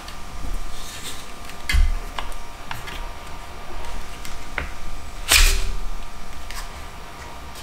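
Handling noise from a plastic DJI Avata drone being lifted out of its moulded box tray and turned over in the hands: scattered clicks and knocks of plastic, with a louder bump and brief rustle about five seconds in.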